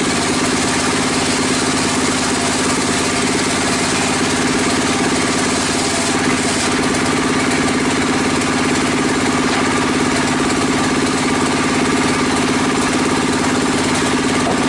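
Engine-driven bench circular saw running steadily while a wooden beam is ripped into planks: a constant engine drone under the hiss of the blade in the wood. The high hiss brightens from about six seconds in.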